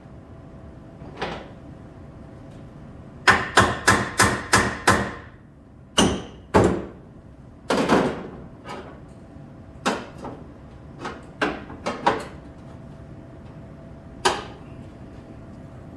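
Hammer blows on car-body sheet metal as a replacement rocker panel is knocked toward its fitted position: a quick run of about six strikes about three seconds in, then single strikes spaced a second or so apart, growing lighter.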